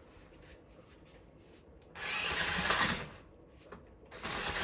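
Toy remote-control monster truck's small electric motor and gearbox running in two short bursts as the throttle is pressed, a whirring drive with rattling, the second burst starting near the end.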